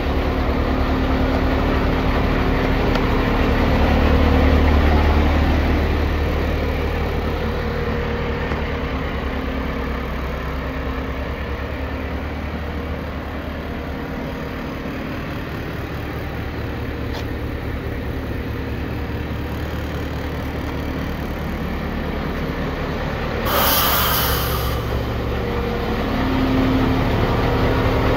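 Renault Premium 320 dCi truck's diesel engine idling steadily, a little louder a few seconds in. Near the end comes a sharp hiss lasting about a second.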